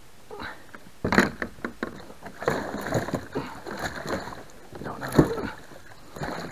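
A large musky thrashing in a landing net against the side of a kayak, with irregular splashes and knocks starting about a second in; the loudest hits come about a second in and again near the end.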